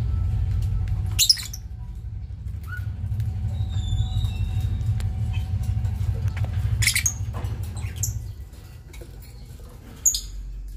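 Lovebirds giving a few short, sharp, high squeaks and chirps, about four in all. Under them is a steady low hum that drops away about eight seconds in.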